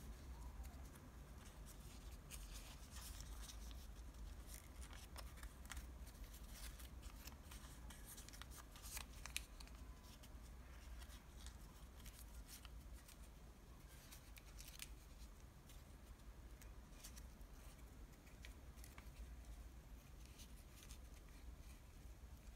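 Faint crinkling and crackling of thin french-fries-bag paper being pinched and creased by fingers into small origami folds, with scattered sharp crackles, the sharpest about nine seconds in.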